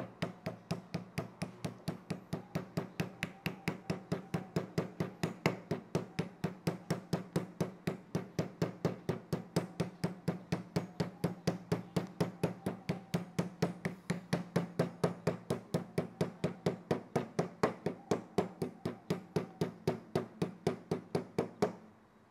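Steady, rapid tapping, about four knocks a second and evenly spaced, as the sealing cap strip of a new Yuasa YTX7L-BS battery is knocked down into its six filler holes after acid filling, to seal the cells tightly.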